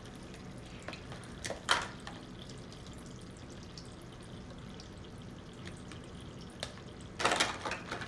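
Water trickling and dripping from a Spark toy sink's running-water faucet, with small plastic clicks and knocks from dishes being handled and a louder clatter about seven seconds in.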